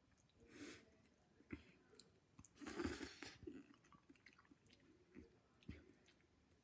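Faint chewing of noodles, with a few soft clicks and a louder noisy burst about three seconds in.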